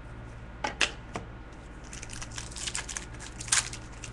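Trading cards being handled: a few sharp clicks, then a quick run of crisp ticks and rustles as cards are flicked and slid through the hands.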